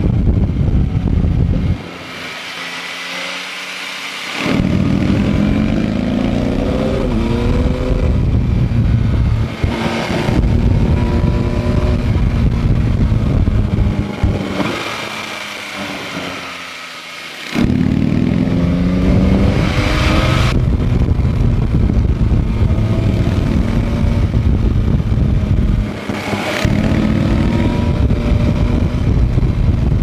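Yamaha MT-09 SP's three-cylinder engine at the rider's seat, pulling hard with rising pitch. Twice it drops back off the throttle for a few seconds, then pulls again with a rising whine. It also eases briefly about ten seconds in and near the end.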